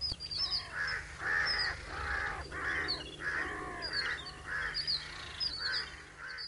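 A crow cawing over and over, about two caws a second, with short high chirps from small birds among the caws.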